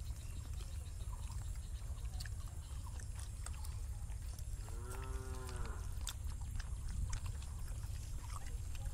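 A single drawn-out call of about a second, rising then falling in pitch, near the middle, over a steady low rumble and small scattered clicks.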